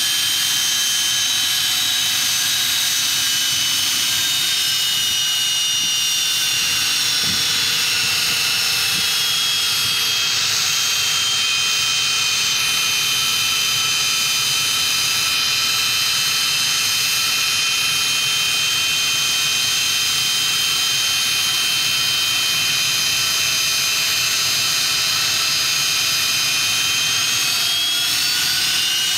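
Learjet 45's Honeywell TFE731 turbofan engines idling on the ramp: a steady, high, multi-toned whine. The pitch sags slightly about six seconds in and rises again near the end.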